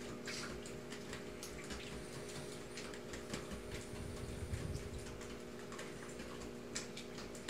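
A whisk beating an egg and milk mixture in a bowl: repeated irregular ticks of the whisk against the bowl as it swishes through the liquid.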